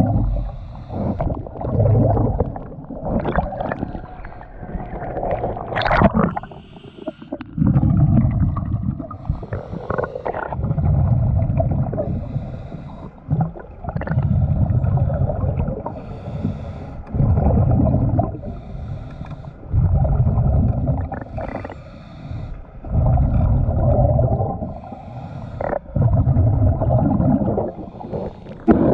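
Muffled water sloshing and gurgling around a GoPro's waterproof housing as it moves underwater and at the surface. It comes in repeated swells about every three seconds, over a faint steady hum.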